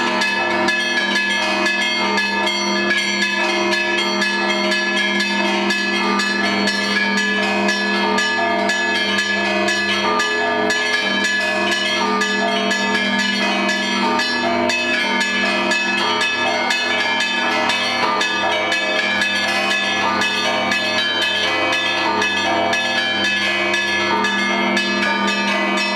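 Orthodox monastery bells rung together in a continuous peal (zvon): small bells struck in quick succession over the steady hum of larger, deeper bells, with no pause.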